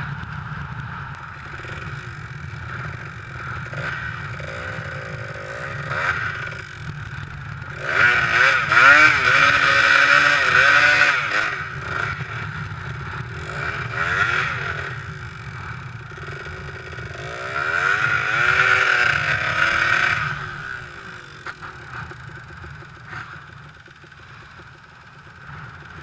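Kawasaki dirt bike engine running under a steady low note, revved hard in two long bursts about eight and seventeen seconds in, its pitch wavering up and down as the bike is bogged in mud.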